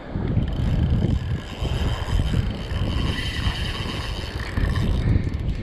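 Wind buffeting the microphone, over a faint steady whir from a large spinning reel's drag giving line as a hooked bluefin tuna makes a run.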